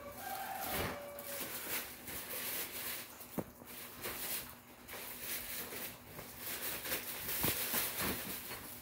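Parts of a hearse prop being handled and fitted together during assembly: irregular rustling and knocking, with one sharp click about three and a half seconds in.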